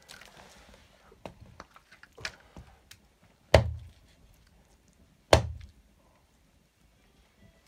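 Heavy knife chopping raw buffalo meat into big chunks on a chopping block: two hard chops with a dull thud, about two seconds apart in the second half, after a few lighter knocks and taps of the blade.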